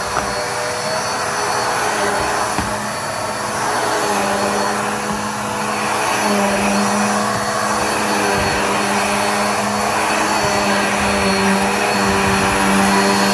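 Black + Decker Air Swivel upright vacuum cleaner running steadily while being pushed over the floor, its motor and suction noise growing slightly louder over the stretch.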